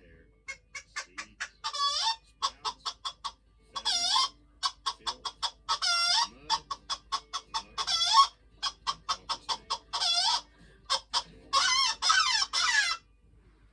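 Hen cackling: quick runs of short clucks broken about every two seconds by a drawn-out squawk, stopping shortly before the end.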